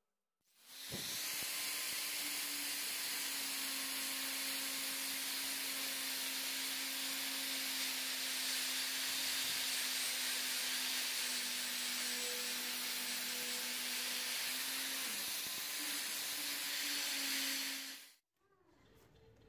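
Angle grinder with a green abrasive disc running against the steel handles of lasting pincers, a steady hiss over a constant motor hum. It starts about a second in and cuts off shortly before the end.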